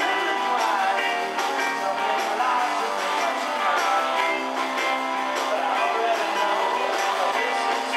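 Live rock-and-roll band playing: strummed electric guitars, bass and drums with a tambourine shaken along, and a man singing into the microphone.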